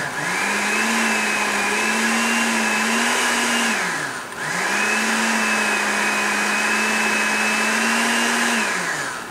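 Umco countertop blender puréeing squash with broth and cream, run twice for about four seconds each. Each time the motor spins up to a steady whir and then winds down.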